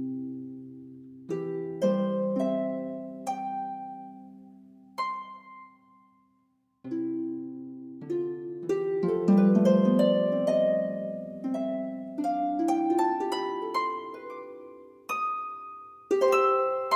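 Soft instrumental relaxation music of plucked, ringing harp-like notes that fade after each pluck. About six seconds in it pauses briefly, then a quick rising run of notes follows.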